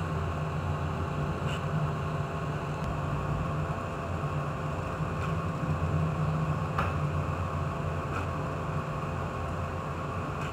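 Ship's engine and machinery running with a steady low drone, with a few faint clicks.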